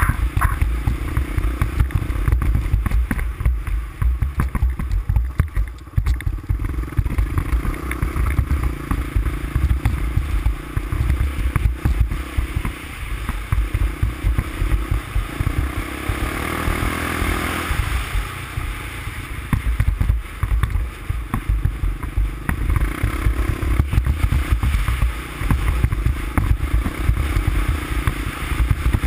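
350X ATV engine running as it is ridden along a snowy trail, with a constant choppy low rumble; the engine note swells briefly a little past halfway.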